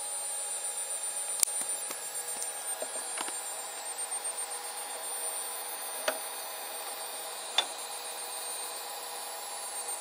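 Steady high-pitched electronic whine made of several held tones, with a few faint clicks spread through it.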